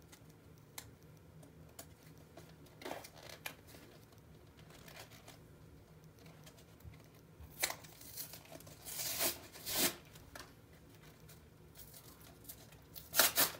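Plastic wrapper of a trading-card pack being torn open and crinkled, in a few short, separate rustles; the loudest come about nine to ten seconds in and just before the end.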